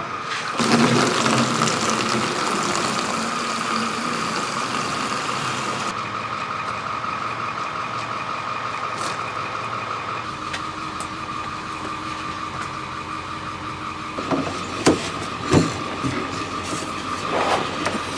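A motor running steadily with a constant whine, with a few short knocks near the end.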